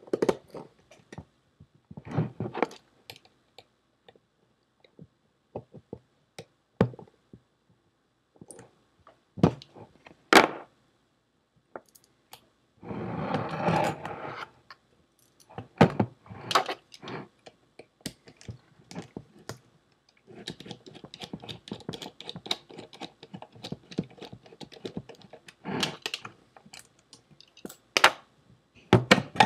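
Metal parts of a Seagate ST410800N full-height hard drive being handled during a teardown: scattered clicks, knocks and clinks as the drive body and platter stack are turned over and set down. There is a longer noisier stretch of over a second about thirteen seconds in, and the last third holds quick, close-spaced rattling clicks.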